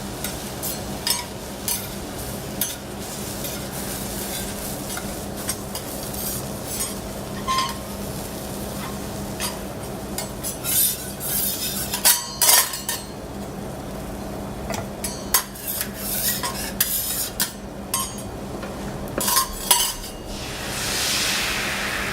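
Japanese rolled omelette frying in a pan: utensils tap and scrape against the pan in many sharp clicks over a steady sizzle and a low hum. Near the end a louder sizzle swells up.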